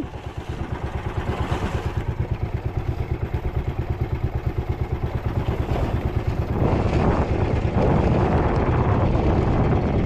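Fishing boat engine running with a rapid, even chugging pulse, getting louder about seven seconds in.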